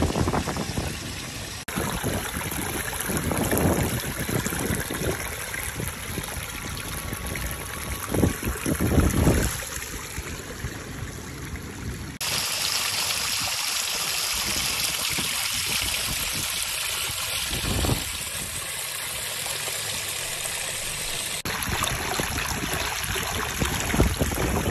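Rain runoff rushing and splashing over rocks, a steady hiss of flowing water that changes abruptly a few times. A few low gusts of wind buffet the microphone, the loudest about eight to nine seconds in.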